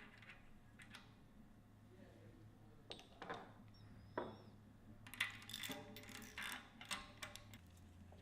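Faint, scattered metallic clicks and clinks of small metal hub parts and tools being handled, such as a bearing, spacer or bearing press drift. The clicks bunch into a quick run about five seconds in.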